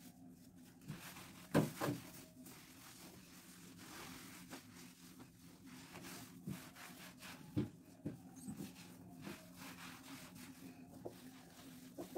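Cloth rubbing over a wooden door as it is wiped down, with a few soft knocks against the wood, the loudest about one and a half seconds in and another about seven and a half seconds in.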